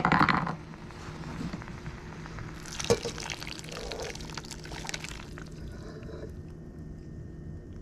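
Blended tomato and chile salsa pouring from a glass blender jar into a hot stainless pan of shrimp, splashing as it lands, after a short knock at the start.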